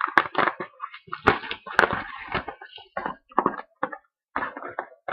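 Cellophane shrink-wrap being torn and crinkled off a sealed trading-card mini box, a rapid run of irregular crackles.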